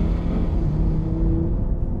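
Audi TT RS's 2.5-litre turbocharged five-cylinder engine running with a steady note as the coupé drives past.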